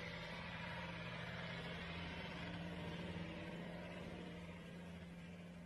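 Faint, steady hum of a vehicle engine running, with a constant low drone that fades slightly near the end.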